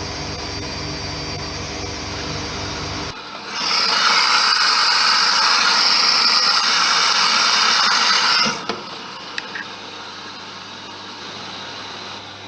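Privileg 3020 washing machine running: its steady motor hum stops abruptly about three seconds in. A loud rushing hiss follows for about five seconds and cuts off, then the machine settles to a quieter hum with a few faint clicks.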